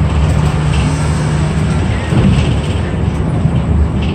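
City bus engine running, heard from inside the bus: a steady low drone that changes pitch about two seconds in.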